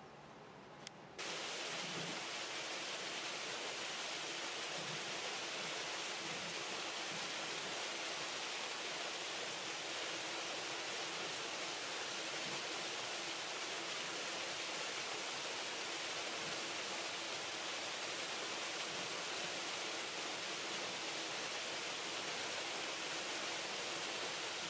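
Steady rushing water in a polar bear pool, an even hiss like a waterfall or stream. It cuts in suddenly about a second in.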